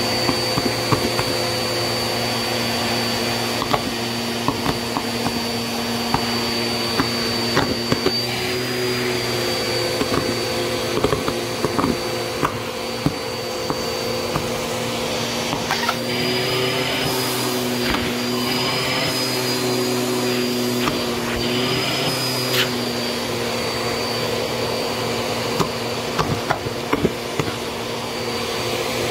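Bissell Helix Turbo vacuum running with its crevice tool on a shag rug: a steady motor hum and high whine, the pitch shifting a few times around the middle as the nozzle works the pile. Small sharp clicks and ticks scatter throughout as bits of debris are sucked up the wand.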